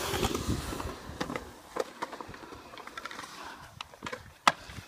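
Skateboard wheels rolling over a concrete bowl, with scattered clacks from the board and a sharp clack about four and a half seconds in, the loudest sound.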